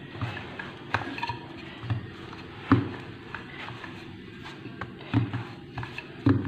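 Hands working pizza dough on a floured countertop: a scattered series of soft thumps and light knocks, the sharpest about halfway through.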